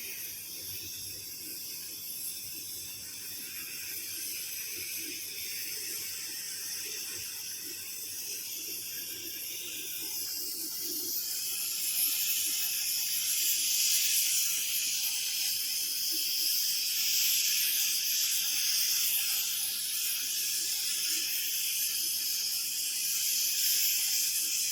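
Cutting torch hissing steadily as it cuts thick steel plate, growing louder about halfway through.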